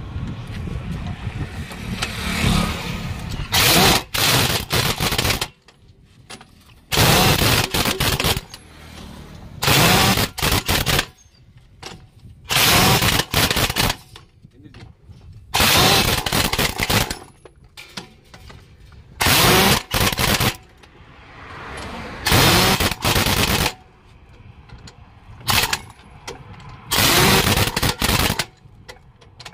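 Heavy pneumatic impact wrench on truck wheel nuts, hammering in nine bursts of one to two seconds each, about three seconds apart, one nut after another.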